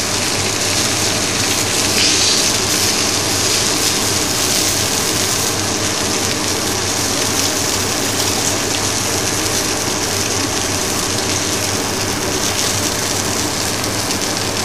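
Salmon fillet frying skin-side down in oil in a hot pan: a steady sizzling hiss, with a low steady hum underneath.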